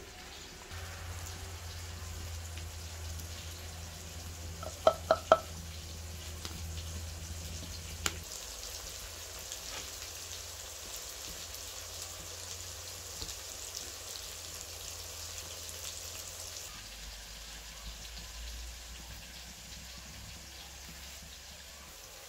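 Sliced onions sizzling in hot oil in an aluminium wok as they are stirred with a metal spatula. A quick run of three sharp ringing clinks comes about five seconds in, and a single click follows near eight seconds.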